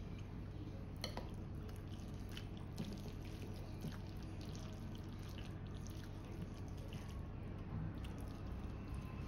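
Chopsticks and a metal spoon stirring creamy, saucy instant noodles in a ceramic plate: soft wet squelching with scattered light clicks of the utensils against the plate. There is a low steady hum underneath.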